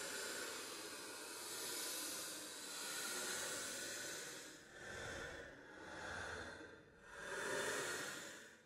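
Ghost-crying horror sound effect: a run of breathy, airy sighs with no clear pitch, about five swells that rise and fall, the last one the loudest.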